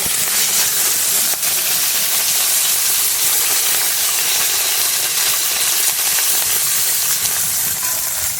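Small fish frying in very hot oil in a kadai: a loud, steady sizzle.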